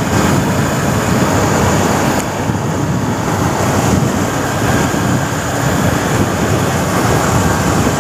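Steady rushing wind noise on the microphone of a Honda CBR250R ridden at speed, with the motorcycle's engine and road noise underneath.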